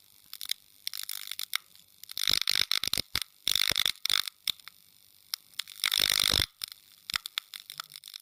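Crinkly plastic wrapper of a Nunettine puff-pastry snack being crinkled and torn open, close to the microphone. There are three louder bursts of crackling, about a second or more apart, with small crackles between them.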